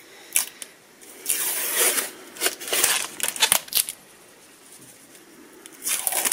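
Yellow heat-resistant tape and the sublimation paper being peeled and rustled off a freshly pressed ceramic mug: a couple of clicks near the start, scratchy tearing and crinkling bursts over the next few seconds, a short lull, then more peeling near the end.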